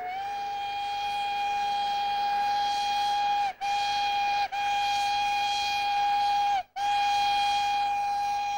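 Steam locomotive whistle blowing one long, steady note, broken by three very short gaps. The pitch sags slightly each time the steam is cut off. A hiss runs underneath.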